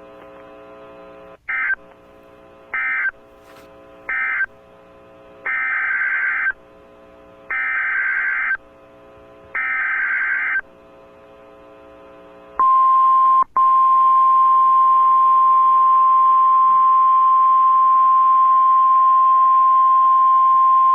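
Emergency Alert System SAME data bursts: three short bursts, the end-of-message code closing one warning, then three longer bursts, the header of the next warning. About two-thirds of the way through, a single steady alarm tone starts, the NOAA Weather Radio 1050 Hz warning tone, with a faint hum underneath.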